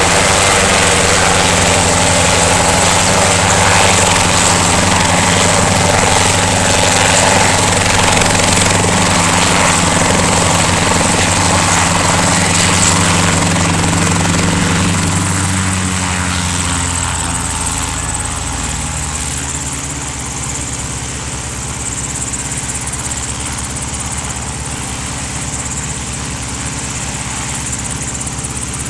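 Helicopter rotor and engine running loud and steady, then easing down to a lower, steadier level about two-thirds of the way through.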